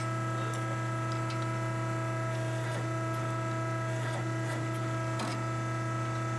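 Steady electric hum of a muffler shop's hydraulic pipe-expander machine running idle, with a few light metal knocks as a steel exhaust pipe is fitted over its expander head.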